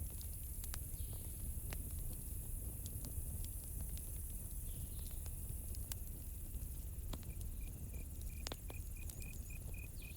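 Campfire crackling with scattered sharp pops over a low rumble and a steady high insect hiss. From about seven seconds in, a cricket chirps in an even run of short notes, about three a second.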